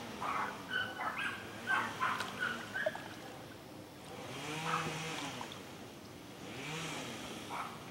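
Dogs barking, a quick run of barks over the first three seconds, then a chainsaw revving up and down twice.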